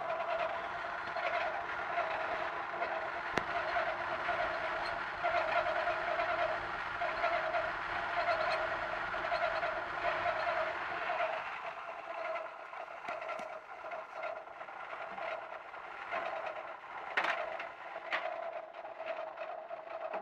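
Otsein Hoover OHNV175 tumble dryer running with its faulty noise: a whining tone that swells and fades about once a second, with a low hum under it that drops away about halfway through, leaving the whine and a few clicks.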